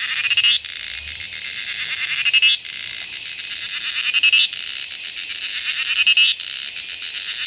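A small insect's loud, high, pulsing buzz call. Each phrase swells and rises slightly in pitch, then cuts off sharply, repeating about every two seconds.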